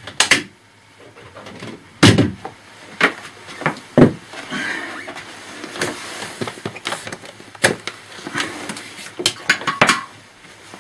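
An old laptop being handled and moved about: a string of clicks and knocks, with loud knocks about two seconds in and again about four seconds in.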